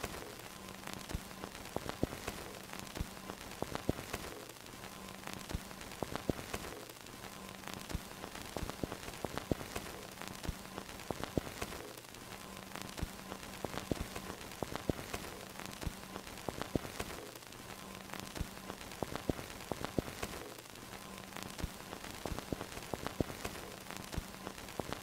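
Old-film soundtrack noise: steady dense crackling and hiss with a faint low hum that cuts in and out in a repeating pattern.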